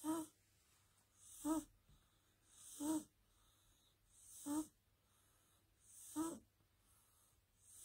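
A sleeping cat snoring softly: a short pitched, nasal snore with a hiss on each breath, repeating about every second and a half.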